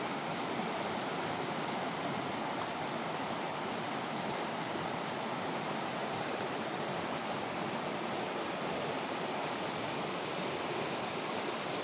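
Rocky forest stream running over small cascades: a steady, even rush of water.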